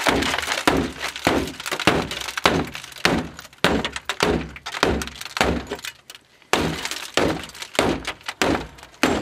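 SOG VoodooHawk tomahawk striking a car's side window edge-first in a run of repeated blows, the glass cracking and breaking under each hit. The blows come about one to two a second, with a short pause about six seconds in.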